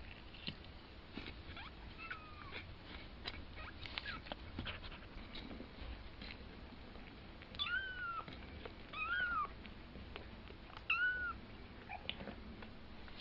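Two-week-old kittens mewing in short, thin, high cries that rise and fall, loudest three times in the second half. Faint clicks and rustles sound between the cries.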